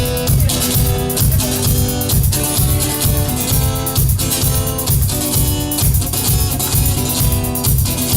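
Rock band playing: guitar over a drum kit with a steady beat.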